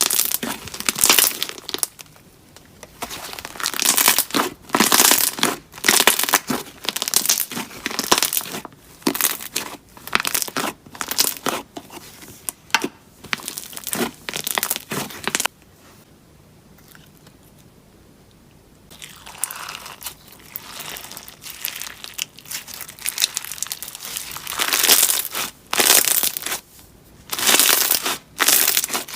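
Slime being squished, stretched and pressed by hand, giving irregular bursts of crackling, crinkling pops. There is a pause of a few seconds a little past the middle before the handling starts again.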